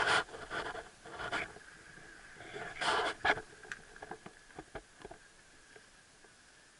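Skis scraping and sliding on groomed snow in short bursts near the start and about three seconds in, followed by a few light clicks, like ski or pole tips tapping, with a faint steady high whine underneath.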